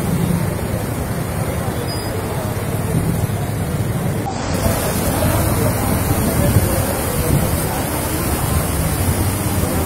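Street ambience of onlookers chattering in the background over a steady low rumble of traffic and wind buffeting the microphone.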